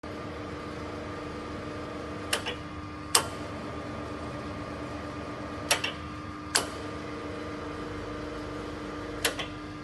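Amada guillotine shear running: a steady motor hum, with sharp metallic clanks in a repeating group about every three and a half seconds, a quick double clank followed by a single one under a second later, as the shear cycles.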